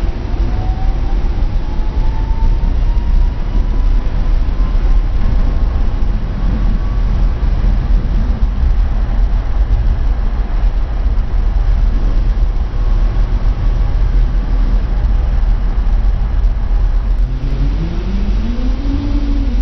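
Tatra T3 tram heard from inside the passenger compartment while running: a steady rumble of the bogies and body throughout. A faint whine rises in pitch over the first several seconds, and near the end a lower tone rises and then falls.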